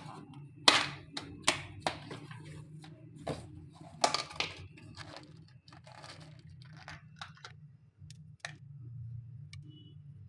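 Hands crumbling crushed Marie biscuit over a dessert and picking white chocolate chips from a plastic tub: an irregular run of short crackles, clicks and rustles, sharpest in the first few seconds and thinning out after about eight seconds.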